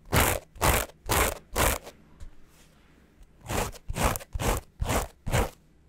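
Heavyweight 20 oz broken-twill big-slub Japanese selvedge denim being scratched in a scratch-sound test, scratchy with a deep bass. Two runs of about four or five rasping strokes, about two a second, with a short pause between them.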